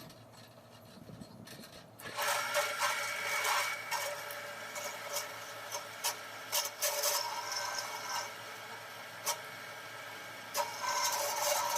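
Metalworking noise: about two seconds in, a machine starts and runs with a steady whine under a rasping, scraping sound, with scattered sharp ticks.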